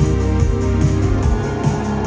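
Live pop band playing an instrumental passage: sustained keyboard chords over bass and a steady drum beat, played loud through a PA.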